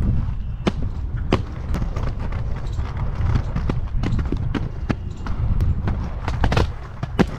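Inline skate wheels rolling over a concrete path, a continuous rough rumble, with a few sharp clacks as the wheels cross joints and cracks in the paving, two near the start and two near the end.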